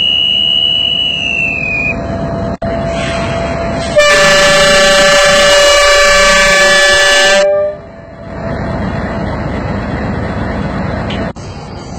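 Diesel locomotive running, then sounding its multi-tone horn in one long blast of about three and a half seconds, starting about four seconds in and cutting off sharply, as the train is flagged off for departure. A high steady tone sounds briefly at the start, and the engine rumble carries on after the horn.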